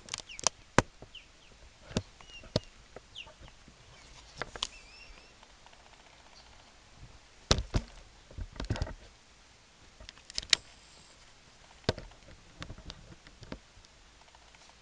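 Scattered sharp clicks and knocks, a dozen or so, with the loudest about halfway through, and a few faint bird chirps in the first five seconds.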